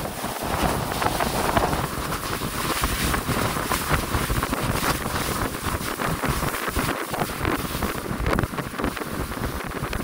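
Wind rushing over the microphone aboard a small fishing boat under way at sea, with the boat's water noise beneath it.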